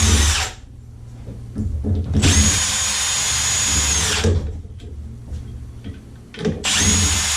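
Power drill running in bursts: a run that stops about half a second in, a two-second run in the middle, and another starting near the end, its motor whine rising as each run starts and falling as it stops.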